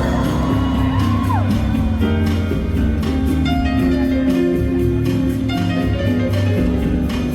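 Live band playing an instrumental passage with a steady beat, with no singing.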